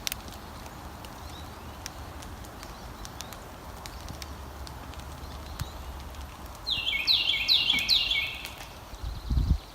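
A songbird singing a quick series of about five descending whistled notes, about seven seconds in, over quiet outdoor ambience. A low thump near the end.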